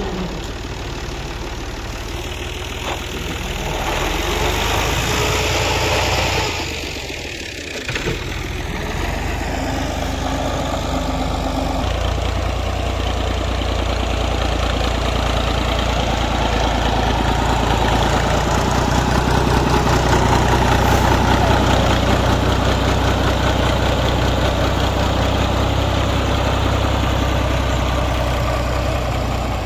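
Fiat 480 tractor's three-cylinder diesel engine running under load while it pushes soil with a front blade. There is a brief dip about seven seconds in, and the engine gets louder through the second half.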